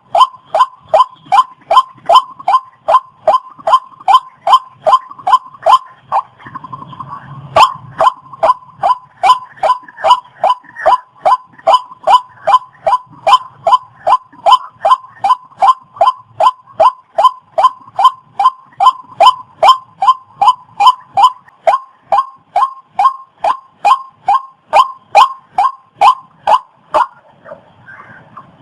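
Waterhen calling: one short, sharp note repeated about three times a second without pause, stopping near the end.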